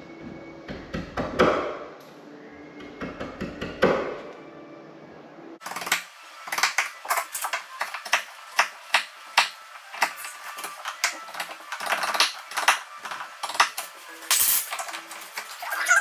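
Wood chisel cutting a shallow recess into a wooden door jamb for a jamb switch box: a few scattered knocks, then from about six seconds in a fast run of sharp clicks and taps, two or three a second.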